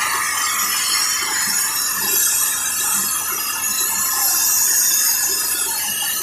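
Steady hiss of gas escaping through an opened valve on a refrigeration system.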